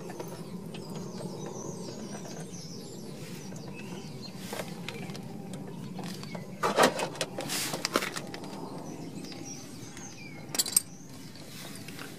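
Metal clinks and a short rattle from hand tools and the brake hose fitting being handled, loudest about seven seconds in with two sharp clicks near the end, over a steady low hum.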